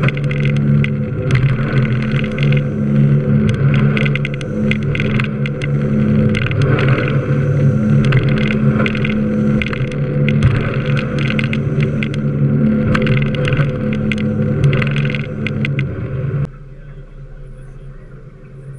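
Aluminium work boat's engine running at speed, a steady drone through choppy water, overlaid with wind and splashing spray crackling on the microphone. About 16 seconds in, this gives way abruptly to a much quieter low engine hum with the boat idling.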